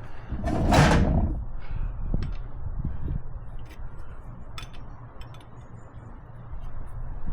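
Hand-tool work on a Kubota V2203 diesel's fuel injector lines: a louder clatter lasting about a second near the start, then scattered light metallic clicks of a wrench on the line nuts, over a steady low hum.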